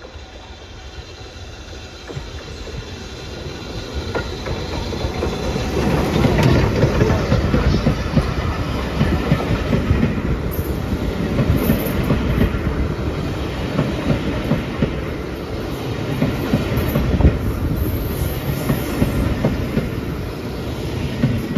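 BR Standard 4MT tank steam locomotive approaching and passing close by, its train of coaches then rolling past with a rhythmic clickety-clack of wheels over the rail joints. The sound builds for about six seconds and stays loud while the carriages go by.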